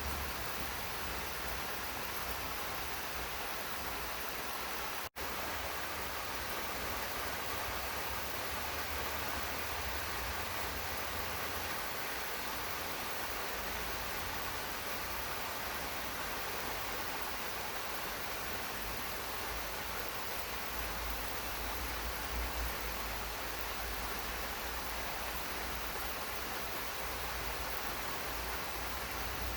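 Steady rain falling in a garden, an even hiss with no let-up. It cuts out for an instant about five seconds in.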